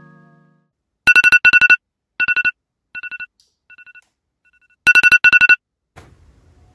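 Electronic alarm beeping in quick groups of four high beeps: a loud group about a second in, then quieter groups fading away, then a loud group of four again about five seconds in.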